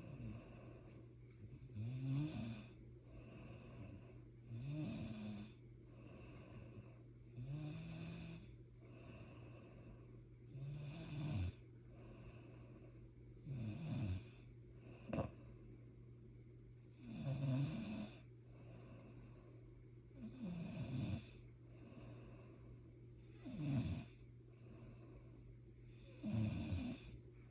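Snoring in sleep: a loud snore about every three seconds, nine in all, each about a second long and wavering in pitch, with quieter breathing between. A steady low hum runs underneath, and there is a single sharp click about halfway through.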